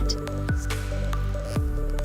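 Background electronic music: sustained notes with a sharp falling swoop twice.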